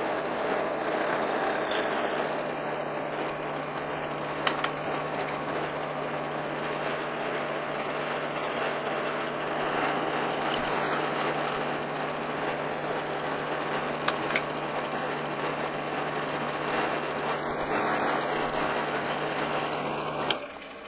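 Powermatic drill press motor running steadily while a quarter-inch bit drills holes in a metal plate, with a couple of sharp knocks and brief high squeals along the way. The motor cuts off near the end.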